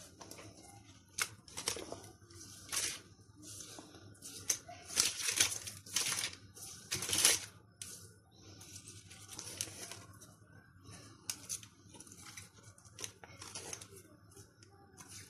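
Pastry brush dabbing and sweeping an egg-and-nigella-seed wash onto raw simit dough rings, with the baking paper underneath rustling and crinkling. The strokes come irregularly and are loudest in the middle.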